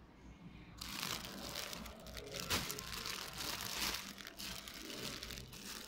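Clear plastic packaging crinkling as a wrapped bedding item is grabbed and handled, starting about a second in and going on in irregular crackles.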